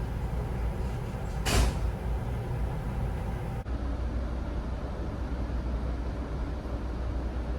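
Heavy diesel vehicle running with a steady low rumble, with one short, sharp hiss of an air brake releasing about a second and a half in. The background changes abruptly about three and a half seconds in.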